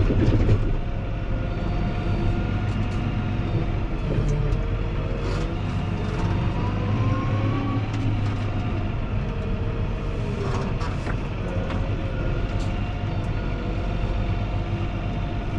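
Fendt 724 Vario tractor's six-cylinder diesel engine running steadily as the tractor drives, with scattered light knocks and rattles and a brief rising whine about halfway through.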